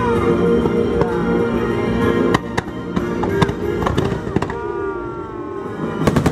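Fireworks going off over the display's music, with sharp bangs from about two seconds in and a quick cluster of reports near the end.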